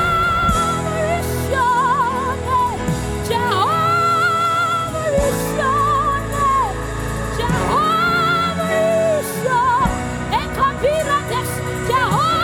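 Live gospel worship music: a singer holding long, wavering notes that slide between pitches, over a steady band accompaniment.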